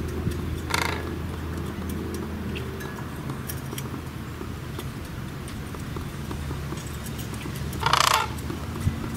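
Sandhill crane calling: one short call just under a second in, then a louder, longer call near the end.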